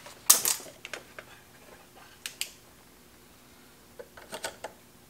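Sharp mechanical clicks from the Sencore SG165's rotary output selector switch being turned to its sweep-and-markers position: one loud click just after the start, a few scattered light clicks, then a quick run of four or five clicks a little after four seconds in.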